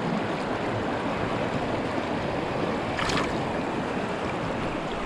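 Shallow rocky river running steadily, a constant wash of flowing water, with one brief splash about three seconds in.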